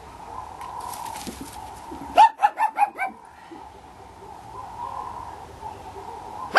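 Pekingese dog yapping: a quick run of five short, high-pitched yips about two seconds in, over a faint steady hum.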